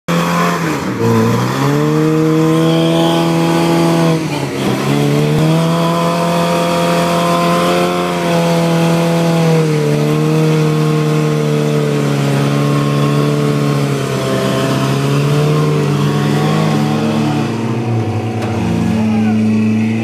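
Built Toyota pickup's engine held at high revs under load as it crawls up a steep rock ledge, the revs dipping and recovering about a second in and again about four seconds in, then settling lower near the end.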